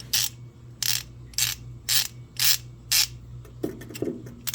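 Crescent 72-tooth hand ratchet being swung back and forth, about two short bursts of fine rapid clicking a second as the pawl runs over the gear teeth. The ratchet is freshly reassembled and oiled with 3-in-1 oil.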